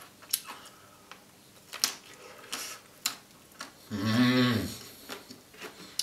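Close-miked chewing of a Maxibon ice cream sandwich dipped in custard: scattered sharp mouth clicks. About four seconds in comes a loud 'mmm' hum of enjoyment, rising and then falling in pitch.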